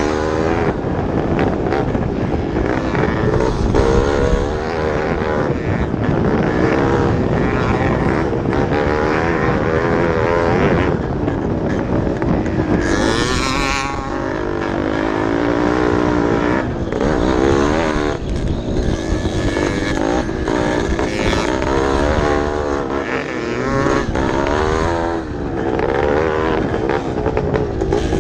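Vintage motocross bikes racing, their engines revving up and down again and again as the riders work the throttles, with more than one bike heard at a time.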